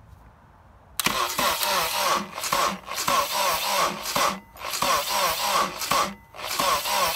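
Honda K24A engine turned over by its starter motor in several cranking bursts with brief pauses, starting suddenly about a second in, during a dry compression test on cylinder two, which builds only about 60 psi, a low reading.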